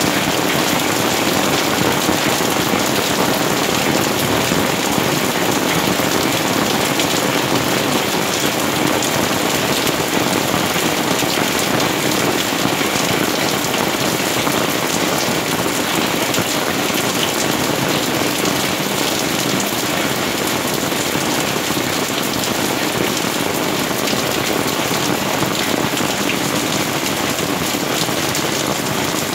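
Heavy rain falling steadily on leafy garden plants, grass and stone pavers, with streams of runoff splashing down among them.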